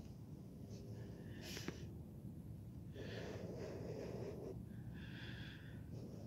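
Breathing close to the microphone, two breaths about three and five seconds in, over a faint low hum, with a light click a little after one second.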